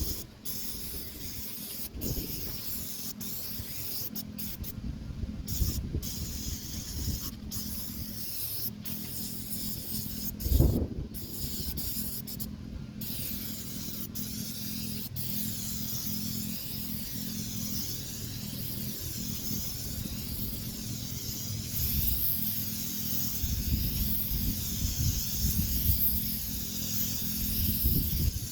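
Paint sprayer hissing as it sprays, over a steady low hum, with the hiss cutting out briefly many times in the first half.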